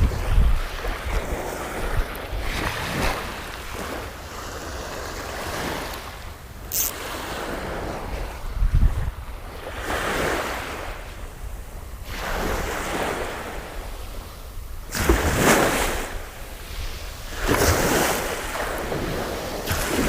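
Waves washing in, swelling and fading in surges a few seconds apart, with gusts of wind rumbling on the microphone.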